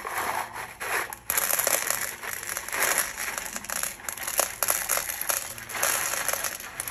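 Small pieces of broken glass tipped from a plate, sliding off and clinking onto a glass pane as a continuous rattle of many small clicks, louder from about a second in.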